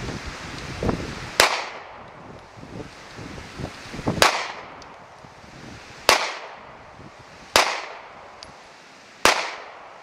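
Beretta Nano 9mm subcompact pistol firing five single shots, unevenly spaced about one and a half to three seconds apart, each with a short echoing tail.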